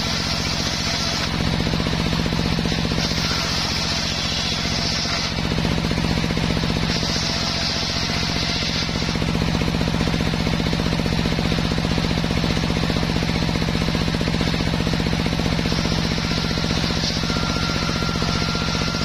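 Homemade table circular saw running steadily with a low hum, its blade ripping waru (sea hibiscus) wood into battens; a higher hiss comes in with each cut, briefly at the start, twice in the middle, and again from about three seconds before the end.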